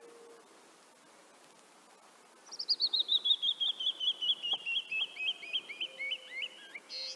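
Canyon wren singing: a cascade of clear whistled notes that falls steadily in pitch and slows down, starting about two and a half seconds in and ending with a short harsh note.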